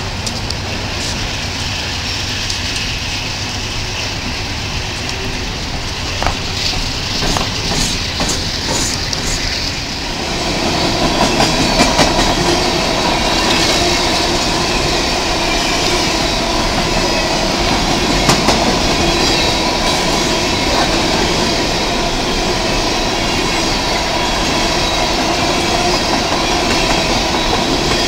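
Union Pacific coal train's hopper cars rolling past: a steady rumble of steel wheels on rail with clickety-clack over the rail joints, growing louder about ten seconds in.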